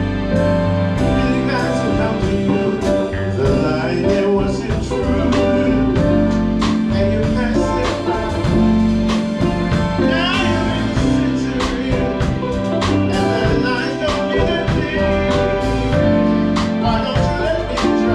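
Live band playing a song at a sound check: drum kit hits over sustained chords and bass, with a singer's voice coming in at times.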